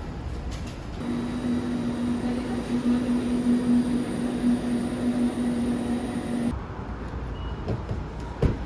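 A vehicle running with a steady droning hum over road or rail noise. The sound changes abruptly about a second in, and again about two seconds before the end.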